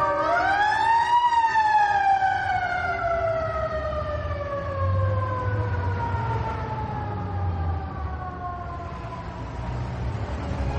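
Air-raid siren winding up to a peak about a second in, then slowly winding down in pitch over the following seconds, with a low rumble beneath it.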